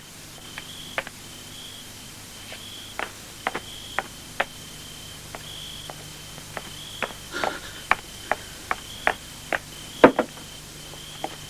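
Crickets chirping at night in a steady pulsing rhythm, over scattered sharp clicks and knocks, with one louder knock near the end.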